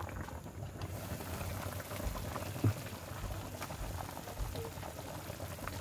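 Pot of pork and tomato broth boiling on the stove: a steady bubbling with small pops, and one knock nearly three seconds in.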